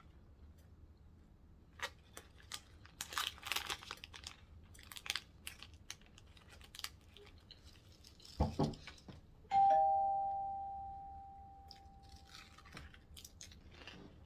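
Wrapper crinkling and eating noises, then a thump about eight seconds in and a doorbell chime that rings once and fades over about three seconds.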